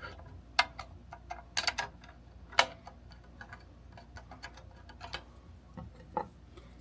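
Irregular light clicks and knocks of small metal parts and tools being handled on a miter saw during a blade change.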